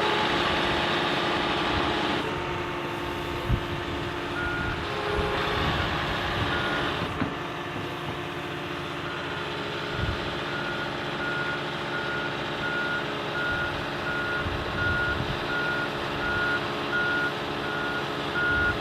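Excavator's diesel engine running as the machine travels on its tracks, with the travel alarm starting about four seconds in and beeping at a steady, even rate.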